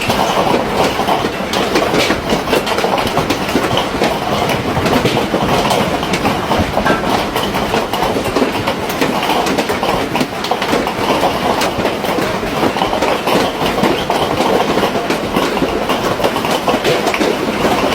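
Hailstones as big as chicken eggs pelting down: a loud, dense, unbroken clatter of many hard impacts.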